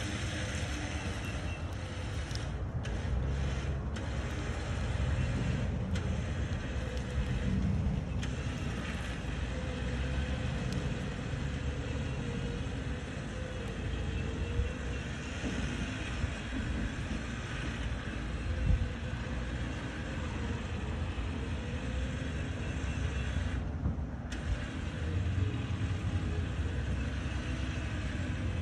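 Ford pickup's engine running with a steady low rumble as the truck crawls forward under load, towing a gooseneck trailer heavily loaded with firewood.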